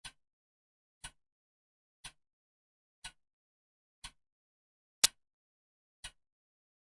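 Clock ticking steadily, one sharp tick a second with silence between. One click about five seconds in is much louder than the others.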